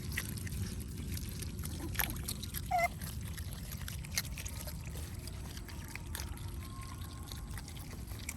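Water trickling and splashing over a steady low rumble, with scattered small clicks and a brief high note about three seconds in.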